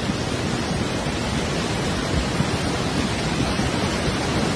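Rushing floodwater: a steady, even rush of water noise with no breaks.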